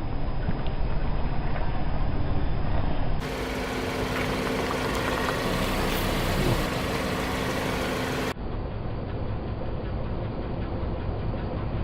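Car engine running slowly with a steady low rumble. The sound changes abruptly about three seconds in and again about eight seconds in, with a steady hum over the rumble between those points.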